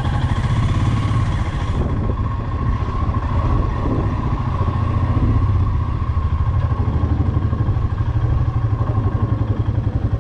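Motorcycle engine running at low speed as the bike rolls slowly, with a steady, rapid, even pulse.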